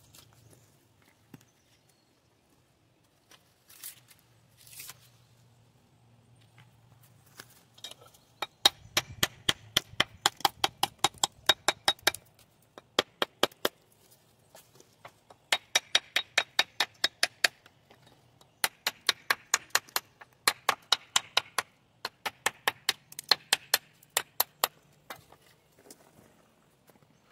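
Rapid sharp taps on stone, about five a second, in bursts of a few seconds with short pauses, as a wall cap is tapped down and set level.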